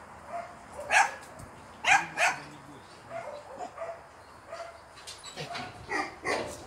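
A dog barking in short sharp barks: one about a second in, a quick pair near two seconds, and another pair near the end.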